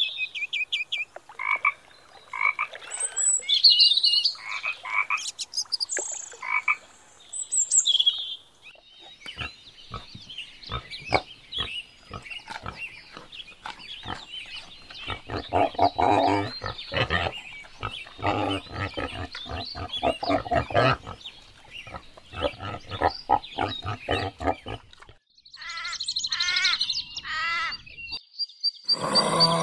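A water frog croaking in a series of short calls. From about nine seconds in, a wild boar grunting, with runs of low grunts in the middle. High-pitched chirps come near the end.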